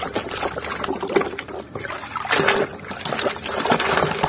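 Water splashing and sloshing in a basin as a plastic toy truck is swished back and forth through it by hand, in quick irregular splashes.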